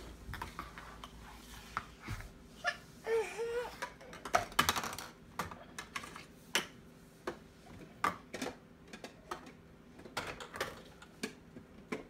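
Small plastic toy pieces of a Barbie food truck playset clicking and clattering as a child handles them, with a busier burst of clatter about four seconds in. A child's short wavering vocal sound comes about three seconds in.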